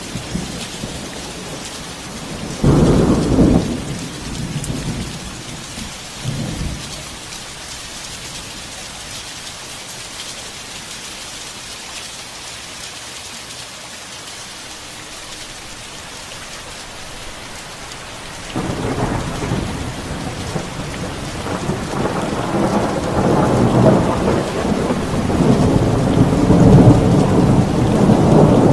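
Heavy rain falling steadily. Low rumbles come over it: a loud short one about three seconds in, a weaker one around six seconds, and a long rumble that starts about two-thirds of the way through and grows louder to the end.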